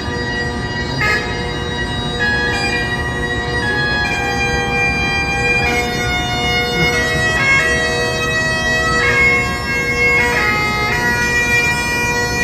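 Bagpipes playing a melody over their steady drone, the chanter stepping to a new note every second or so.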